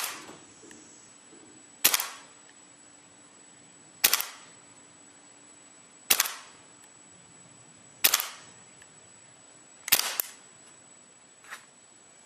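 KSC H&K MK23 SOCOM gas blowback airsoft pistol firing six single shots about two seconds apart, each a sharp pop that dies away quickly. A much fainter click follows near the end.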